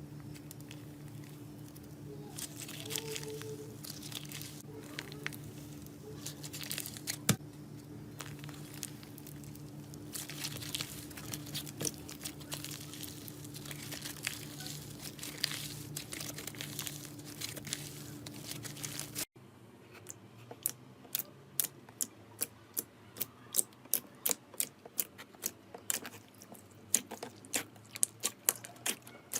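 Slime being squeezed and pressed by hand, giving crinkly crackling over a low steady hum. About two-thirds of the way in it cuts to a run of sharp sticky clicks and pops, two or three a second.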